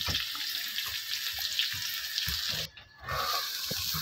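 Stuffed bitter gourd pieces sizzling and crackling as they shallow-fry in hot oil in a kadhai, a steady hiss with small pops, cut off briefly about three-quarters of the way through.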